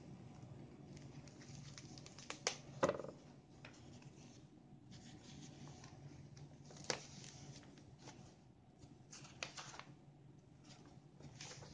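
Pages of an old bound magazine volume being turned by white-gloved hands: soft paper rustling and sliding, with a few sharp clicks and taps, the loudest two or three seconds in, over a faint low hum.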